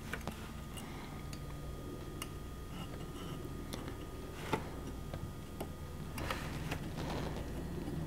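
Light, scattered clicks and taps of fingers handling a small capacitor and pressing its wire leads through a printed circuit board, with one sharper click about four and a half seconds in and a few more near the end. A steady low hum runs underneath.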